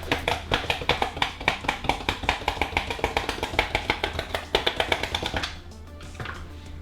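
Quick, crackling clicks of a chocolate bar's card packaging being handled and torn open, stopping about five and a half seconds in.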